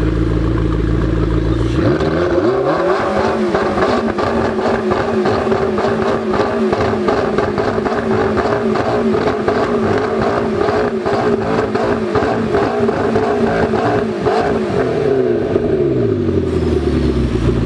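McLaren MP4-12C's twin-turbocharged 3.8-litre V8, breathing through an Akrapovic exhaust, idles and is then revved up sharply about two seconds in. It is held at high revs for some thirteen seconds, then drops back to idle near the end. The engine is still cold.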